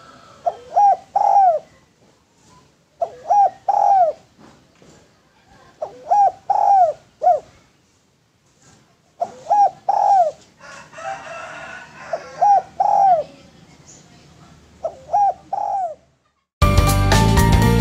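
Spotted dove (derkuku/tekukur) cooing in repeated phrases of three or four notes, a phrase about every three seconds. Loud outro music cuts in near the end.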